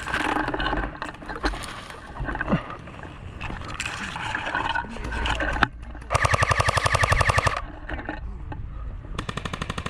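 Airsoft gun firing on full auto: a rapid burst lasting about a second and a half a little past the middle, and a second burst starting near the end.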